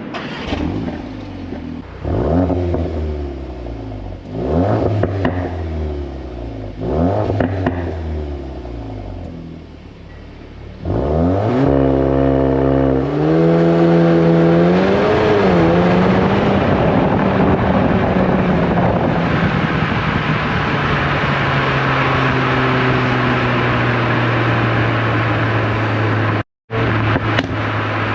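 VW Golf 8 R's turbocharged 2.0-litre four-cylinder heard through its Akrapovič exhaust: three quick revs, each falling away. About eleven seconds in, the pitch climbs sharply, wavers, then settles into a steady drone. The sound cuts out for a moment near the end.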